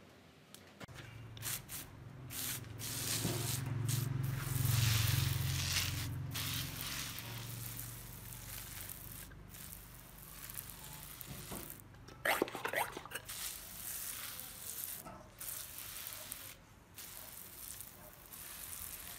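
Water spraying in a hissing jet onto a hanging orchid basket and its moss, strongest in the first half and then coming in softer, uneven spurts. A low hum runs under the spray for several seconds.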